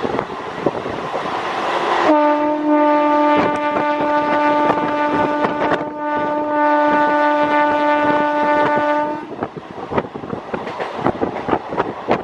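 Train horn sounding a long steady blast, with a brief dip in the middle, over wind rushing past and the clatter of wheels over rail joints from a moving train.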